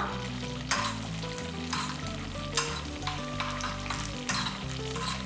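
Cashew nuts sizzling as they fry in hot ghee in a small steel pan, with a metal spoon stirring them and scraping against the pan a few times.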